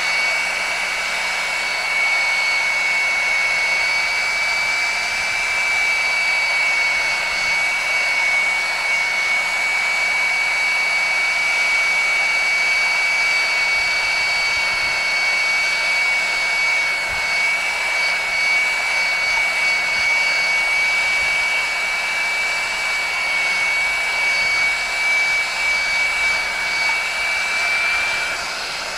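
Hot-air heat gun blowing steadily while shrinking heat-shrink tubing, a constant rush of air with a steady high-pitched whine from its fan motor.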